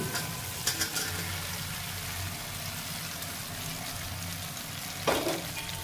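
Potato and cauliflower pieces sizzling steadily in hot oil and tempering in a kadhai. A metal spatula clicks against the pan just under a second in and scrapes once about five seconds in.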